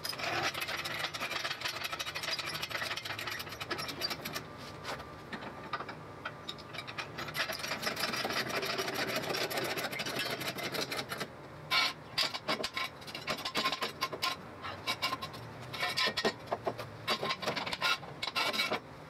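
Scraping and clattering of hand work at the rear of an old electric golf cart, as a floor jack is set under it and pumped. Quick, irregular clicks thicken in the second half.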